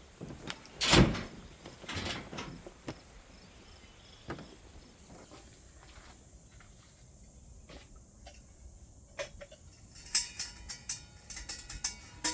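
Scattered knocks and clunks of camping gear being handled and packed, the loudest about a second in, with a quick run of sharper clicks and light clinks near the end.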